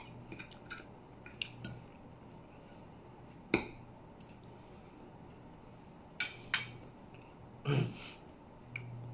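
Metal knife and fork clinking and scraping on a plate while food is cut and eaten: a scatter of short, sharp clinks, the loudest about three and a half seconds in, with a short softer rustling sound near the end.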